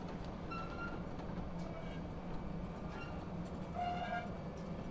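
Freight train passing with a steady rumble, faint clicks and a few short high squeals, the strongest about four seconds in.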